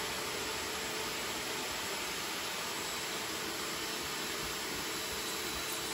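Electric air pump running steadily, an even rushing hiss with a faint hum, as it inflates a PVC inflatable boat's pontoon tube.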